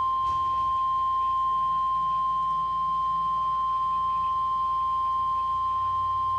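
NOAA Weather Radio 1050 Hz warning alarm tone: one steady, unbroken pitch that cuts off suddenly at the end, signalling that a severe-weather warning message follows.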